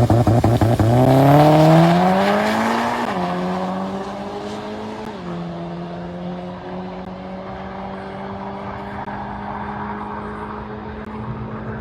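Drag race car launching off the line: the engine first runs in a rapid, pulsing stutter, then its pitch climbs, drops at two upshifts about three and five seconds in, and holds steady as the car runs on down the track.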